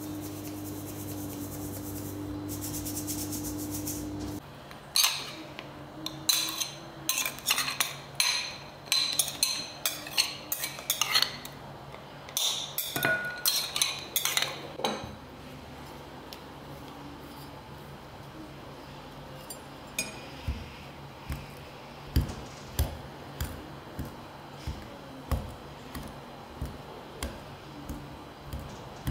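Kitchen utensils and dishes clinking and knocking during scone preparation: a steady hum that cuts off about four seconds in, then a busy run of sharp clinks, and later a regular series of soft knocks, about one and a half a second.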